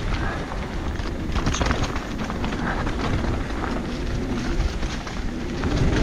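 Mountain bike ridden down a rough dirt trail: tyres rolling over dirt and stones, with the bike rattling and knocking over bumps and a steady low rumble of wind on the microphone.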